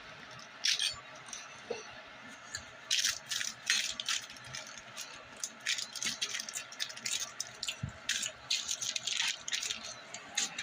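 Packaging being handled and crinkled, a dense run of quick, irregular crackles and rustles.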